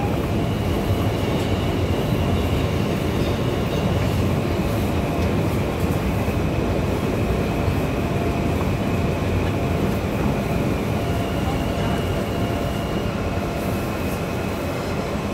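R160 subway car running, heard from inside the car: a steady rumble of the wheels on the rails, with a faint high whine that comes and goes.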